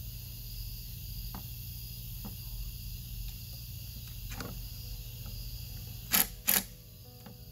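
Two short bursts of a cordless DeWalt impact driver driving a screw into hard antler bone, about a third of a second apart near the end. Crickets chirp steadily in the background.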